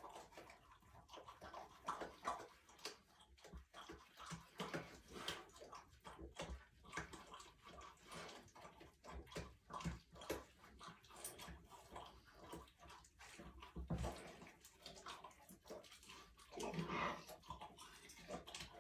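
Faint, irregular knocks, clicks and rustles from a pet cougar moving about in a small bathroom, with a slightly longer, fuller sound near the end.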